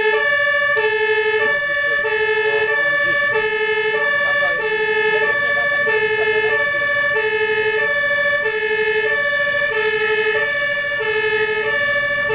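German two-tone fire-engine siren (Martinshorn) on a MAN tanker fire engine, switching evenly back and forth between a low and a higher tone, heard loud from inside the truck's cab. A steady high tone is held underneath.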